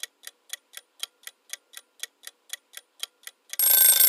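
Clock-ticking countdown sound effect, about four ticks a second, for the riddle's answer time. Near the end a loud bell-like ring starts, louder than the ticks, marking that the time is up.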